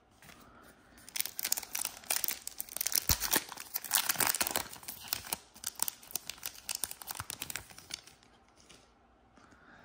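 A foil-wrapped NBA Hoops trading card pack being torn open by hand, its wrapper crinkling and tearing in a dense crackle from about a second in until about eight seconds, loudest in the middle.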